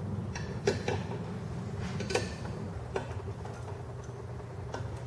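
Light metallic clicks and ticks, about six scattered over a few seconds, from a hand tool snugging the screws that join the two cast aluminium crankcase halves of a Wacker Neuson WM80 rammer engine. A steady low hum runs underneath.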